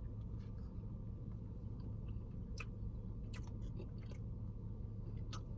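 Quiet chewing of a bite of biscuit, with a few short, sharp mouth clicks over a steady low room hum.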